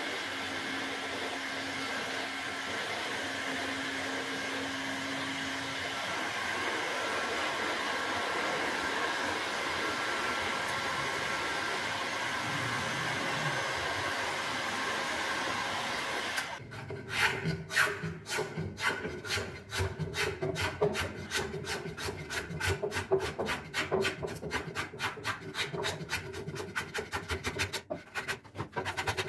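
Handheld Bosch heat gun blowing steadily on a willow cricket bat. About sixteen seconds in, quick rhythmic rubbing strokes take over, several a second: the bat's wood face being sanded by hand with a small block.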